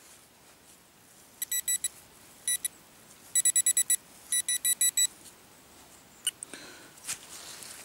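Garrett Pro-Pointer pinpointer beeping in short, high bursts as its tip is worked into the hole over a buried metal target; the beeps come in quick runs, signalling a strong, clear detection.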